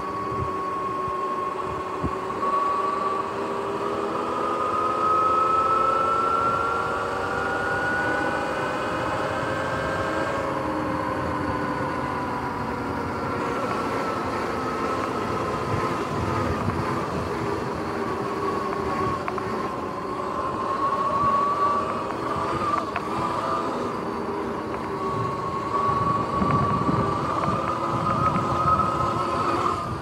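Sur-Ron X electric dirt bike's motor and belt drive whining while riding, several tones rising and falling together with speed, over wind and tyre rumble.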